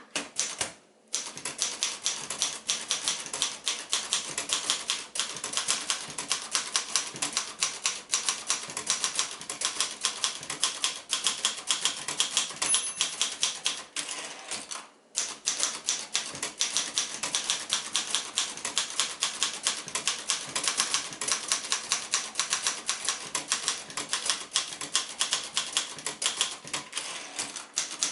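1964 Royal Keystone ultraportable manual typewriter being typed on at a fast, steady pace: rapid clacking keystrokes. There are short pauses about a second in and about halfway through, with a brief high ring just before the mid-way pause.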